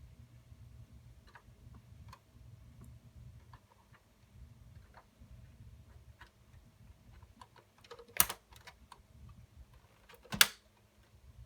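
Light clicks and taps of plastic and metal parts being handled inside a desktop PC during a memory-module swap, with two loud sharp snaps about eight and ten seconds in, over a low steady hum.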